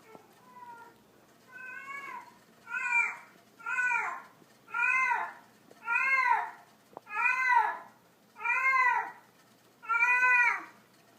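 A cat meowing over and over, about one meow a second, each call rising then falling in pitch. The first few meows are faint, and from about three seconds in they are loud.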